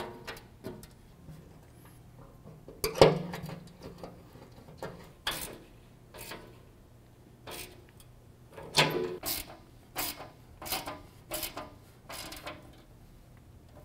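Socket ratchet and wrench tightening door-bracket bolts fully: scattered ratchet clicks and metal tool clinks, irregularly spaced, with a few in quick succession about three seconds in and again about nine seconds in.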